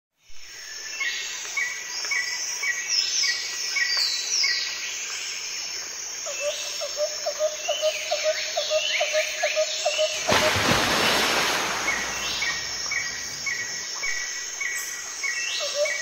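Small birds calling: a chirp repeated about twice a second, falling whistled notes, and a quick run of lower notes about four a second. For about four seconds past the middle a rough rushing noise covers the calls.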